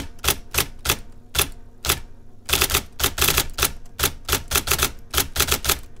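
IBM Selectric electric typewriter being typed on with its top cover raised, each keystroke a sharp, deafening clack from the golf-ball typing element. The strokes come about three a second at first, then faster and denser from about two and a half seconds in.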